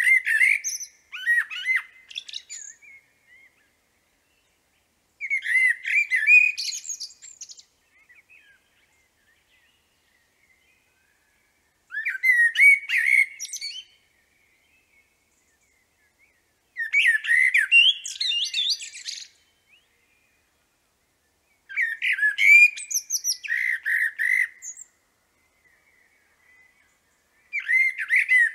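Common blackbird singing: a series of separate song phrases roughly every five seconds, each a couple of seconds of warbled notes with higher twittering, with silent pauses between them.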